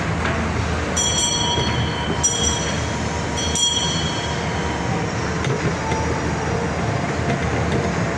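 Mall ride-on train running with a steady low rumble, with three brief high squeals about a second apart in the first half.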